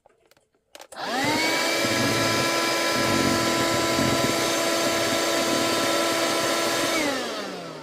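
Handheld cordless mini vacuum cleaner switched on with a click, its motor spinning up quickly to a steady whine, running evenly for about six seconds, then switched off and winding down with a falling pitch.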